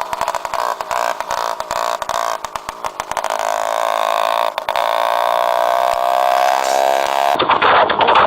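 Moped engine running with its exhaust pipe removed: a loud, rapid crackle of firing pulses that settles into a steadier engine drone about halfway through. Near the end it cuts abruptly to louder music.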